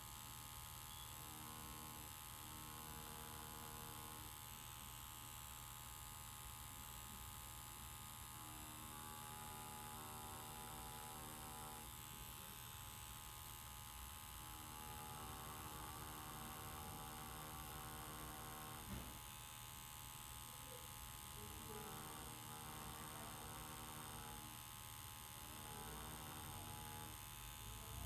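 Tattoo machine running with a faint, steady electric hum while lining into practice skin, its tone shifting in stretches of a few seconds as the needle works.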